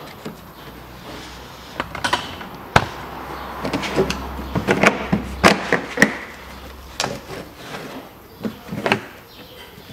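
Plastic wheel arch liner being worked free: sharp clicks and snaps from push-in clips prised out with a thin tool, with scraping and rustling as the liner is flexed and pulled aside. The snaps come one after another, the loudest cluster about halfway through.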